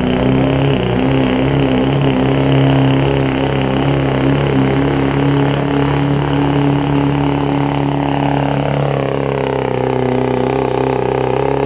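Chevrolet Silverado's Duramax turbo-diesel V8 running flat out under heavy load while pulling a weight-transfer sled. The engine note is loud and steady, shifting slightly in pitch over the last few seconds.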